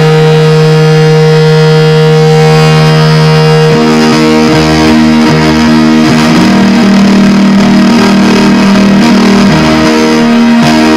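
Loud distorted electric guitar music. One low note is held for nearly four seconds, then the guitar moves to a slow run of changing sustained notes.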